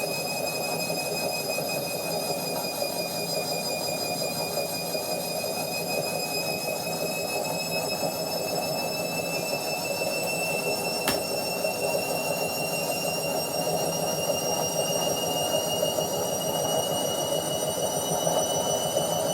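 Washing machine on its spin cycle: a steady whir with a high motor whine that rises slowly in pitch as the drum gathers speed. A single sharp click about eleven seconds in.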